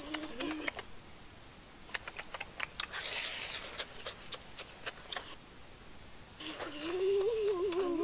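Close-up chewing and lip-smacking of people eating roast pork, a string of quick wet clicks. Near the end a long, wavering hummed "mmm" of enjoyment.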